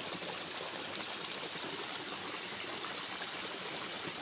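Small waterfall in a rocky stream, water pouring over and splashing around rocks in a steady rush.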